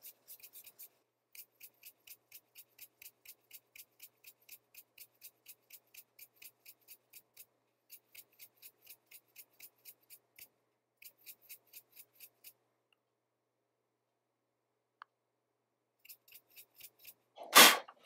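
Makeup brush sweeping dust off a laptop circuit board: faint, quick bristle strokes about four a second, stopping for a few seconds, then two short, loud bursts of air near the end.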